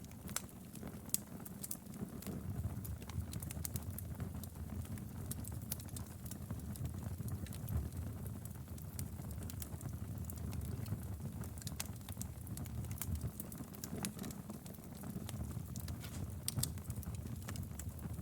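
Wood fire burning in a fireplace: a steady low rumble of flames with many sharp, irregular crackles and pops from the burning firewood.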